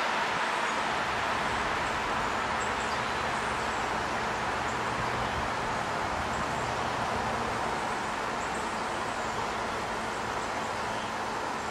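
Steady outdoor background rush, with faint high chirps a few times.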